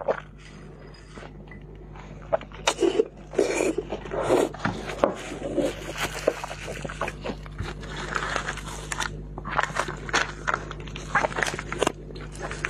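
Close-miked crunching and chewing of raw red chili peppers: many quick crisp crunches and wet mouth sounds, starting about two seconds in.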